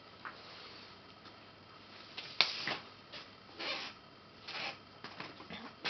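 A sharp click about two and a half seconds in, followed by several short rustling noises, roughly one a second: something being handled.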